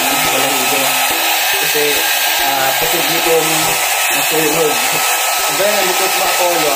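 Handheld electric hair dryer running steadily, blowing on a puppy's damp fur.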